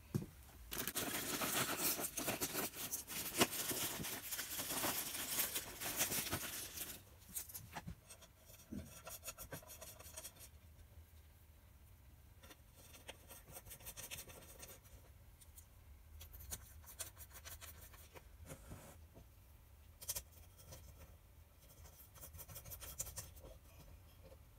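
Cloth towel rubbing and wiping over a brass clock case: a dense, scratchy rubbing for the first several seconds, then softer scattered rustles and light handling clicks.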